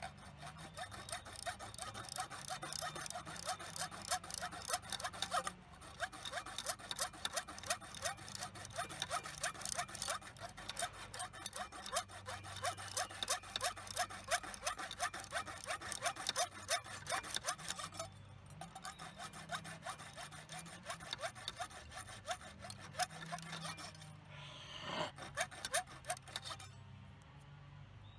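A hand tool rasping rapidly back and forth on steel in long runs of even strokes, stopping briefly a few times.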